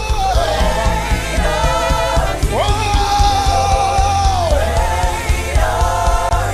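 Live gospel worship music: voices singing, with one long held note in the middle, over a band with a steady bass pulse.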